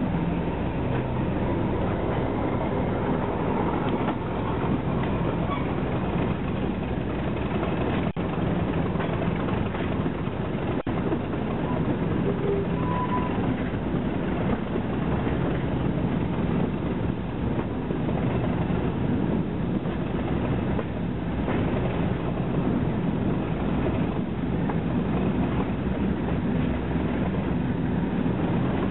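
Diesel locomotive hauling a train, its engine running steadily under power, with the wheels clicking over the rail joints and wind rushing past an open coach window.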